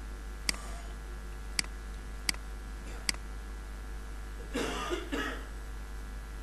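Four sharp computer-mouse clicks in the first three seconds, then a short two-part cough about four and a half seconds in, over a steady low hum.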